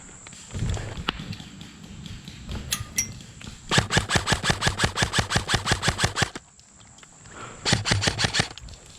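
Airsoft rifle firing on full auto: a long burst of sharp evenly spaced shots at about ten a second, lasting around two and a half seconds, then a shorter burst about a second later.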